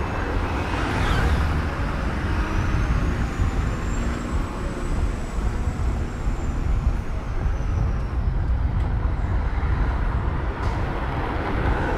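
Road traffic noise: a steady rumble of passing vehicles, with a faint high whine that rises and then falls in the middle.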